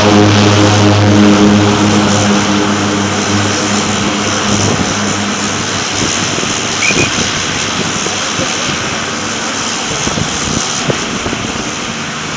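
Twin-engine turboprop at takeoff power, its propeller drone strong at first, then fading over the first few seconds into a steady rush as the plane rolls away down the runway.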